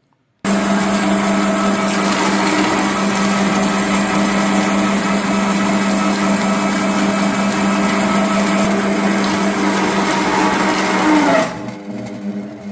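An electric food grinder switches on about half a second in and runs steadily with a loud hum, grinding raw chicken parts. Near the end the sound drops and turns duller while the motor keeps running.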